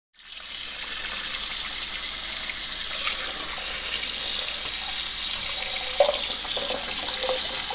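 Cold tap water runs steadily into a stainless steel saucepan of freshly hard-boiled eggs, splashing over them to cool them and stop the cooking. It starts abruptly, and there are a few light knocks in the second half.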